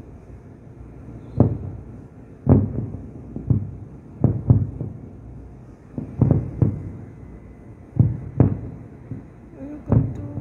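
Distant aerial fireworks shells going off, a long irregular series of low thuds, sometimes two or three in quick succession, each fading away.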